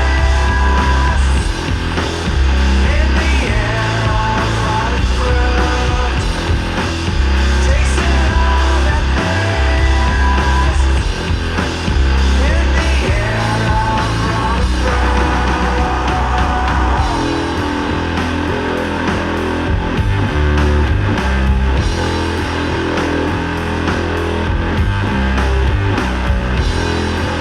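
Heavy doom and sludge metal: loud distorted guitar over deep bass notes that each hold for a second or two.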